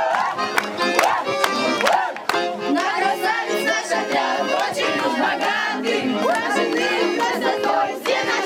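A song with a strong beat, sung loudly by a group of voices over instrumental backing.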